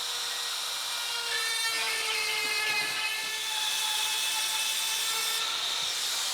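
RotoZip spiral-cut tool running at high speed, its bit cutting through old wooden lath in a plaster ceiling: a steady high-pitched whine.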